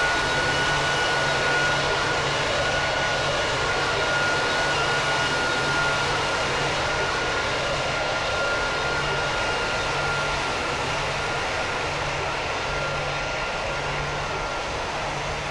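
Aircraft engines running: a steady rush of noise with a high whine that drifts slightly down in pitch, under a low hum pulsing about once a second. The sound fades slowly toward the end.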